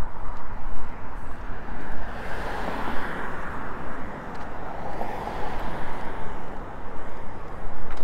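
A car passing on the street: its rushing noise swells to a peak around the middle and fades again, over a steady low rumble.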